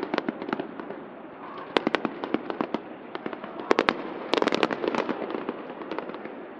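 Fireworks going off in quick volleys of sharp bangs and crackles. They come in three clusters, the loudest about four seconds in.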